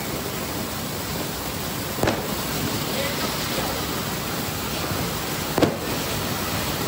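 Ground fountain fireworks spraying sparks with a steady rushing hiss. Two sharp cracks cut through it, one about two seconds in and another about five and a half seconds in.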